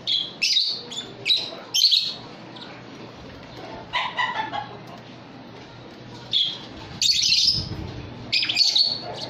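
Lovebirds in an aviary giving short, shrill chirps in scattered bursts: a quick run of four in the first two seconds, one around the middle, and several more in the last three seconds.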